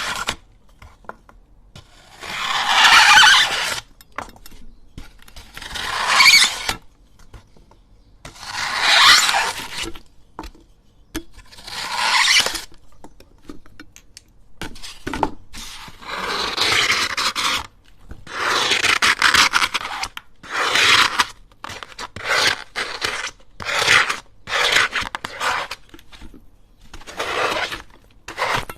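Kinetic sand being cut and scraped with a blade in repeated gritty strokes. At first the strokes are slow and come about every three seconds; in the second half they are shorter and quicker, about one a second.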